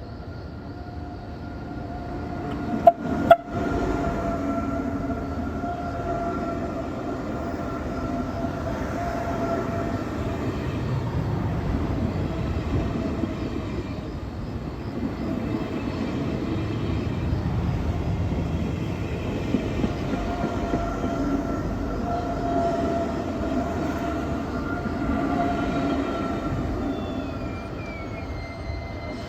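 SBB ICN (RABDe 500) tilting electric train sounding its horn in two short blasts about three seconds in, then running past for over twenty seconds with a steady whine over the rumble of its wheels, dying away near the end.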